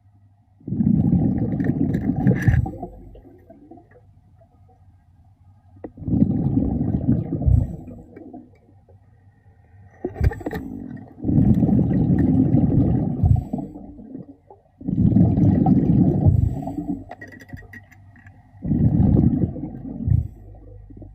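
A diver's breathing underwater: five bursts of exhaled air bubbling out of the regulator, each lasting a second or two, in a steady rhythm about every four seconds, with quieter pauses between them for each inhale.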